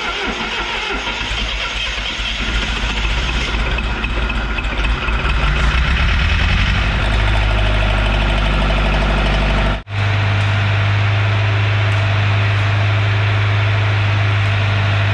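Diesel engine-driven welder running just after starting, its low drone building and then settling to a steady pitch. The sound drops out for an instant near the ten-second mark, then a steady low hum carries on.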